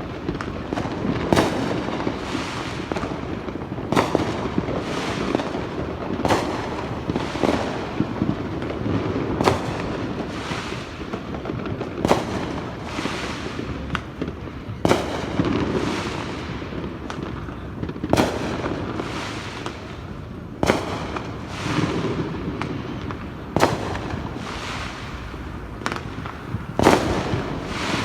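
Firecrackers and fireworks going off: about a dozen sharp bangs at irregular intervals of two to three seconds, over a steady crackle of smaller explosions.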